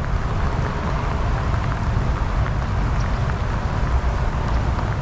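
Steady rain noise with a heavy low rumble and a few faint drop ticks.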